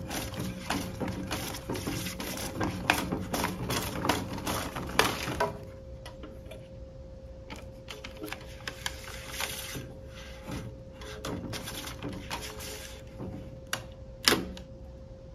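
Hands handling paper label stock and plastic parts inside a Zebra ZT410 thermal transfer printer while the media is backed up: rustling and small clicks, busy for about five seconds and then sparser, with one sharper clack near the end. A faint steady whine runs underneath.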